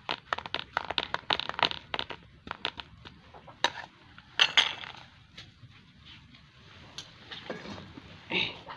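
Metal spatula pressing and scraping a crumbly coconut-sugar mixture down in a steel plate: a run of quick clicks and scrapes, densest in the first couple of seconds, then more scattered.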